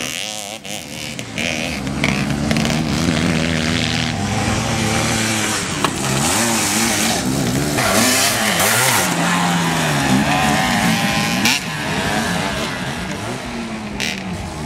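Several small two-stroke MZ motorcycles racing on a dirt track, their engine notes overlapping and repeatedly rising and falling as the riders rev through corners and jumps.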